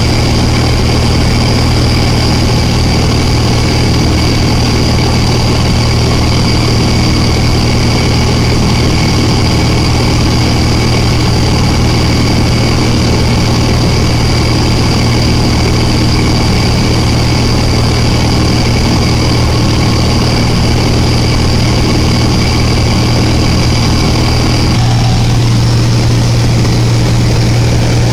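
Light aircraft's piston engine and propeller droning steadily, heard loud inside the cabin. About 25 seconds in, the engine note shifts slightly and a high whine drops away.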